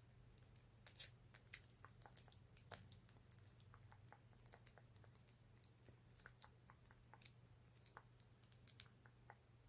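Fingernails tapping and clicking on lip gloss containers: a stream of small, sharp, irregular clicks, a few noticeably louder than the rest.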